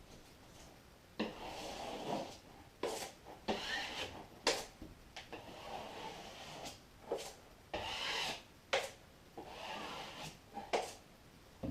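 Drywall taping knife spreading and scraping joint compound across drywall in repeated strokes, roughly one a second, with a few sharp clicks between them.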